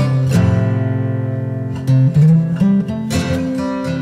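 Background music: acoustic guitar playing, with plucked notes and a long held chord about half a second in.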